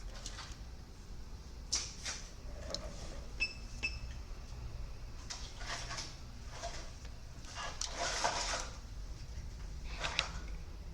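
Small clicks and rustles of hands handling tools at an electronics repair bench, with two short high electronic beeps about three and a half seconds in.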